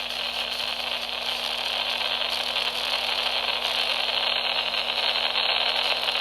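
Steady radio static hiss with a faint low hum underneath it, unchanging throughout.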